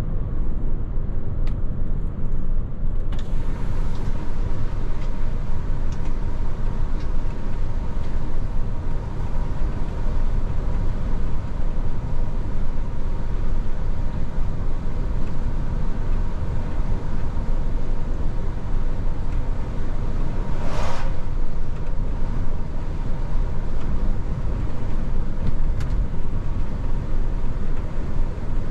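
Truck driving along the road, a steady low rumble of engine and road noise, with a short hiss about two-thirds of the way through.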